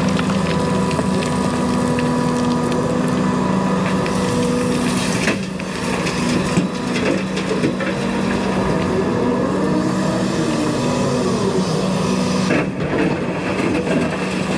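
Caterpillar 335 excavator's diesel engine running steadily under working load, with hydraulic whine that rises and falls as the machine works gravel, and a few knocks along the way.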